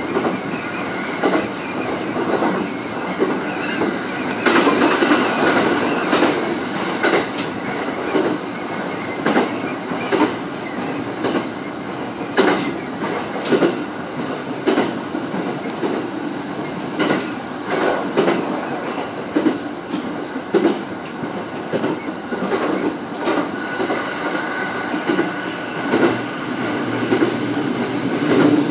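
JR East 209 series electric train running, heard from inside the leading car. A steady rumble of wheels on rail, with repeated sharp clicks as the wheels pass over rail joints.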